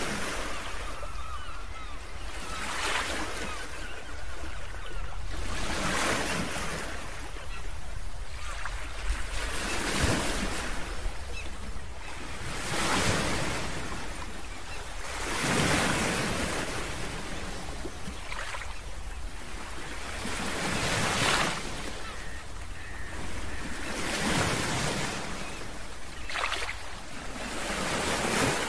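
Pacific surf breaking and washing over a rocky shore, each wave swelling and fading every few seconds, over a steady low rumble.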